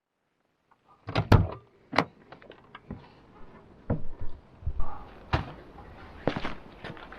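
A run of clunks and knocks, like a van door and gear being handled, starting about a second in after a moment of dead silence.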